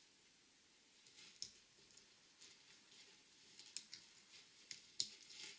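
Faint, scattered metallic clicks of split-ring pliers working a small stainless steel split ring open and onto a wire rig, a few more clicks toward the end.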